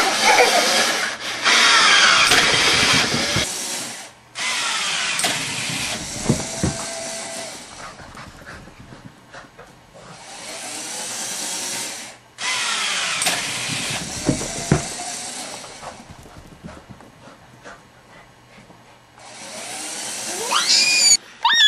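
Motor of a homemade automatic tennis-ball launcher running in several bursts of a few seconds each, some ending with a falling whine as it spins down.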